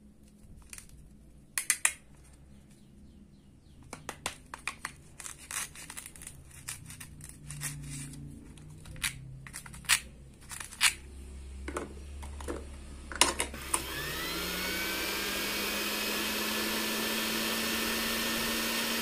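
Light plastic clicks and taps as toy food pieces are handled. Late on, a small battery-powered toy blender motor starts, its whine rising briefly before it settles into a steady hum.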